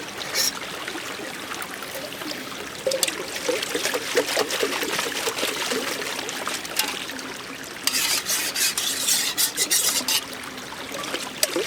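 Water trickling steadily, with scattered sharp ticks and a louder crackling rustle about eight to ten seconds in.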